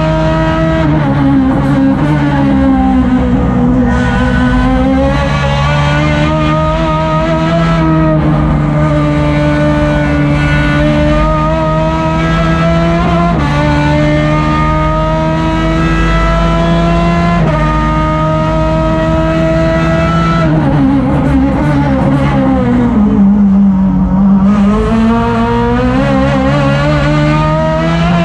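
Chevrolet STC2000 race car engine heard from inside the cockpit at racing speed, its pitch climbing and falling with the throttle and stepping abruptly at gear changes. The pitch drops low twice, about three seconds in and again around twenty-three seconds in, then climbs back.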